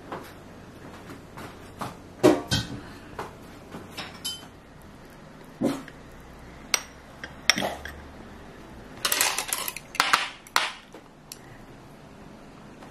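A metal spoon clinking and scraping against a ceramic bowl while scooping cooked rice: scattered single clinks, then a quick run of them about nine seconds in.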